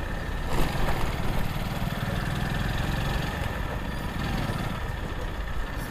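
Small motorcycle's engine running steadily as it is ridden slowly, under a steady rush of road and wind noise. The engine has been running almost without oil for about a week, and the rider finds its sound unusual.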